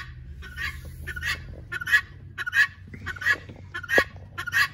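Helmeted guinea fowl calling: a harsh, loud call repeated steadily about every two-thirds of a second.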